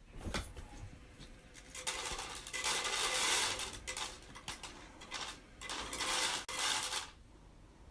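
Automatic pet feeder dispensing dry kibble into its tray: pellets rattle and clatter down in several bursts from about two seconds in, stopping about seven seconds in.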